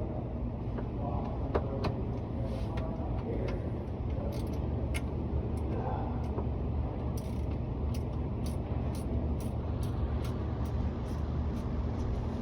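Screws being tightened by hand into a cabinet-door latch magnet: a few scattered clicks, then a steady run of about two to three ratcheting clicks a second in the second half, over a steady low hum.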